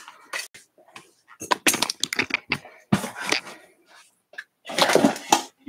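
Paper sheet rustling and crackling in irregular bursts as it is handled and set down.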